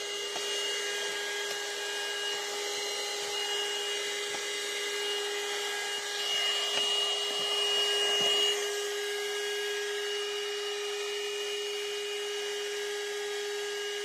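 RNG EKO GREEN 12 V, 200 W handheld car vacuum cleaner running at full suction: a steady motor whine over rushing air. It grows louder for about two seconds in the middle, then settles back.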